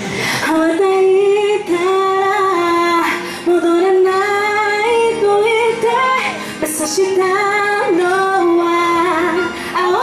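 A woman singing into a microphone over a music backing track, holding long sustained notes.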